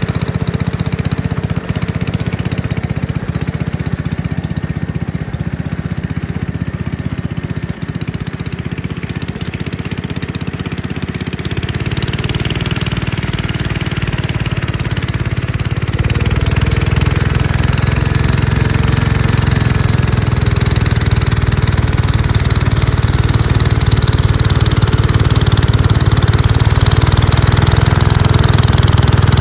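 Engine of a Gravely Commercial 10A walk-behind tractor running steadily while it drives its snowblower attachment. The sound shifts a little under halfway through and grows louder about halfway through, staying that way.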